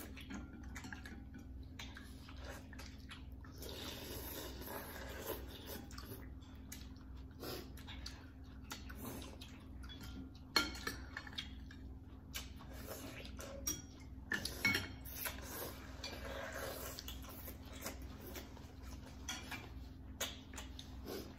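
Chopsticks and metal spoons clinking and scraping against ceramic bowls of noodle soup, with a few sharper clinks scattered through.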